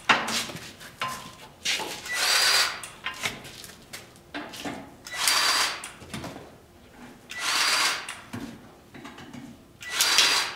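Milwaukee M18 cordless grease gun on its high-speed setting, running in four separate spurts of about a second each, each one pumping a preset four strokes of grease into a grease fitting. Short clicks fall between the runs.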